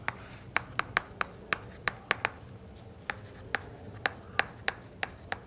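Chalk writing on a blackboard: a run of sharp, irregular taps and clicks as the chalk strikes the board, with a pause of about a second around the middle.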